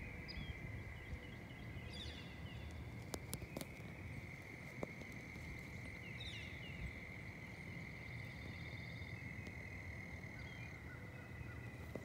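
Outdoor nature ambience: insects keep up a steady, high, unbroken drone, with short bird chirps about two seconds in and again past the middle, over a low background rumble.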